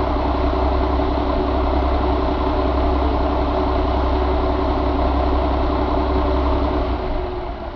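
Mack E7 inline-six diesel engine idling steadily, with a deep, even rumble that falls away near the end.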